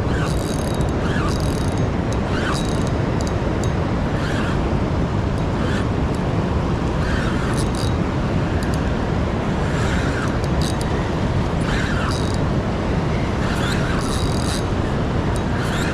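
Steady rushing noise of river water and wind. Over it, a soft tick comes about once a second, in time with a spinning reel's handle being cranked while a hooked striped bass is reeled in.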